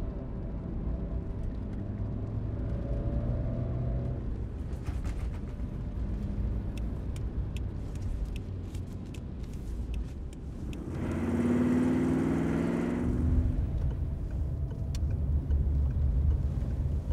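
Car ride noise heard from inside the cabin: a steady low engine and road rumble. It swells louder for about two seconds just past the middle.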